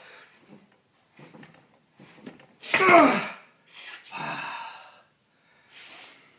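A man breathing hard and straining while forcing an over-tightened lug nut loose with a four-way lug wrench. About three seconds in comes a loud groan falling in pitch, followed by a long heavy exhale and another breath near the end.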